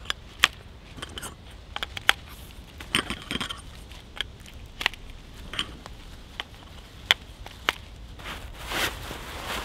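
Folding camp bed frame being unfolded by hand: irregular sharp clicks and clacks as its legs and joints knock together and snap into place, with a soft rustle near the end.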